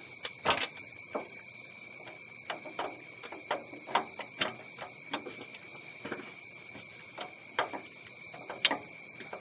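Irregular metal clinks and taps as the injector rocker lever assembly is handled and set down onto a Cummins ISX cylinder head, the sharpest about half a second in and near the end. A steady high-pitched tone runs underneath.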